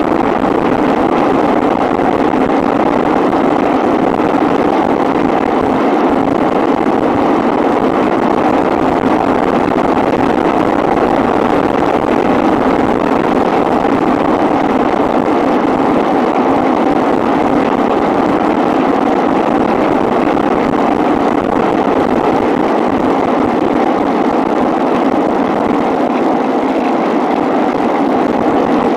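Steady rush of air over a Cularis FPV model glider in flight, its electric motor throttled back to almost nothing; an even hiss with no pitch to it.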